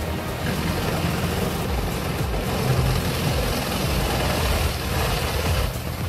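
Vermeer tracked horizontal grinder running under load as its drum grinds a log: a steady heavy engine sound mixed with rough grinding noise.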